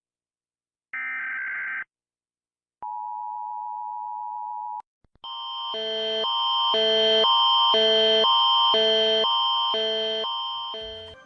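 US Emergency Alert System tones: a short burst of SAME header data tones, then the two-tone attention signal held steady for about two seconds. About five seconds in, the Canadian Alert Ready attention signal starts, quick alternating tones that swell up and then fade away over about six seconds.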